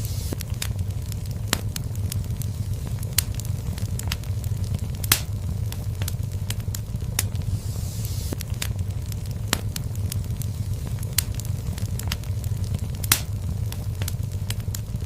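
Wood fire burning in a fireplace: a steady low rumble with irregular sharp crackles and pops, two louder pops about five seconds in and near the end.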